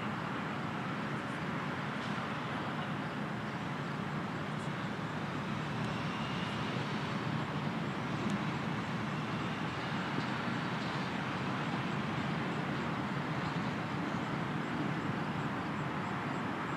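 Steady outdoor background noise with no distinct events.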